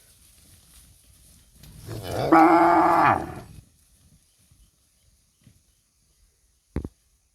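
A cow mooing once, a long call of nearly two seconds that drops in pitch as it ends. A single short sharp click follows near the end.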